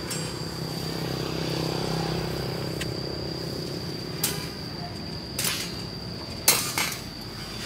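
A motorbike passes on the road, its engine rumble swelling and fading over the first few seconds, over a steady high whine. Later come three or four sharp metallic clinks of steel rebar being handled and tied.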